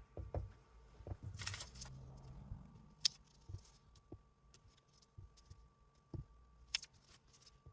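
Faint desk-work taps and clicks of a stamp and ink pad being handled: a rubber stamp inked and pressed onto cardstock, with a short rustle about a second and a half in and a few sharper clicks.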